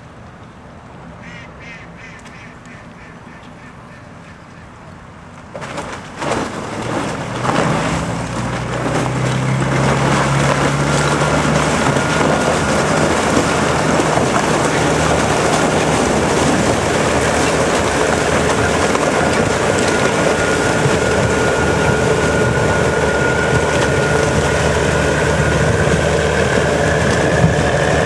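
Small workboat breaking through thin canal ice: its engine running under load with churning water and ice floes. Fairly quiet at first, it grows loud and steady from about six seconds in as the boat comes close.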